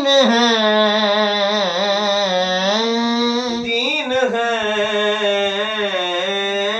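A man singing a naat unaccompanied, drawing out long held notes with ornamented melodic turns and a brief break about four seconds in.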